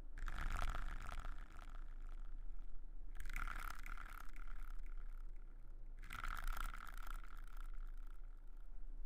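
Close-miked ASMR trigger sounds: three long, hissy strokes of about three seconds each, over a steady low electrical hum.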